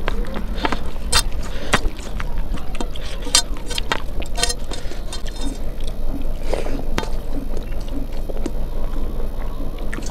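Close-miked eating by hand: many short wet clicks and smacks from chewing a mouthful of rice and dal, with fingers squishing and mixing the rice on a steel plate. A steady low hum runs underneath.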